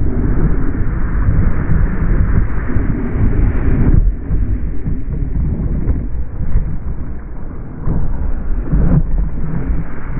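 Wind buffeting the microphone of a surfboard-mounted camera, mixed with rushing whitewater as the board rides a breaking wave: a loud, low rumbling noise. It eases off about four seconds in and grows loud again near the eight-second mark.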